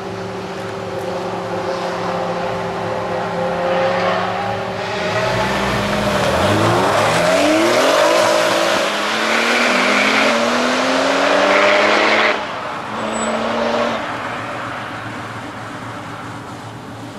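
Two Porsche 996-generation 911s, one a GT2, idling side by side, a rev, then launching hard together: the engine notes climb through the gears, dropping at each upshift. About twelve seconds in the sound falls away suddenly and then fades as the cars pull away.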